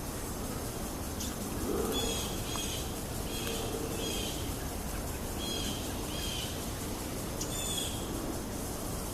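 Short bird chirps, repeated in small groups every second or so, over a steady background hiss of outdoor ambient noise.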